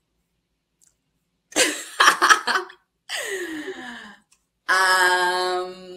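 A woman's wordless vocal reaction: after a short pause, a couple of breathy bursts of laughter, then a voiced sigh falling in pitch, then a long, steady held vocal sound near the end.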